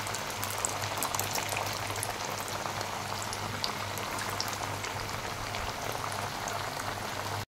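Aloo-sabudana tikkis deep-frying in very hot peanut oil: a steady bubbling sizzle with constant fine crackling. It cuts off suddenly near the end.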